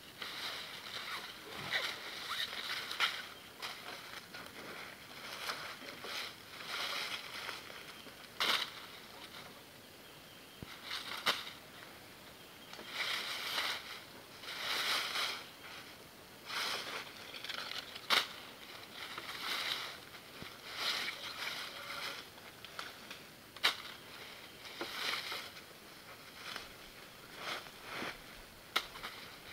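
Bungee cord being pulled and wrapped around a wooden log pole: irregular scraping and rubbing of the cord against the wood, with several sharp clicks along the way.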